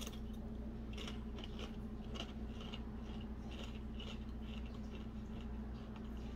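Faint crunching of a Doritos tortilla chip being chewed with the mouth closed, a soft crunch about three times a second.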